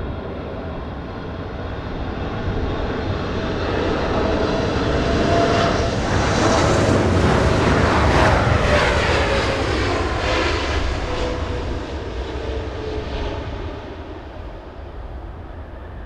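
Four-engine Boeing 747-8 jetliner passing low overhead on landing approach. The jet engine noise builds to a peak about eight seconds in, with a whining tone that drops in pitch as it goes past, then fades.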